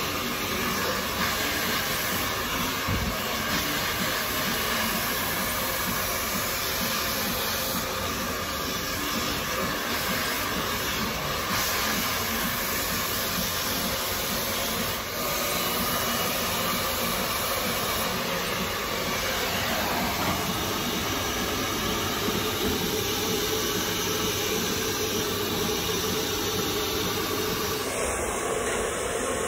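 Handheld hair dryer blowing steadily during a round-brush blow-dry.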